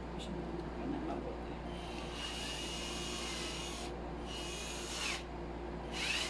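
Aotuo cordless drill run with no load in three short trigger pulls: the motor whines up, runs, and winds down each time, the last starting near the end.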